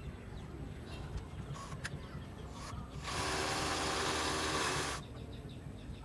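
A small power tool's motor, likely a cordless drill, runs steadily for about two seconds in the middle, starting and stopping abruptly. A few faint clicks come before it.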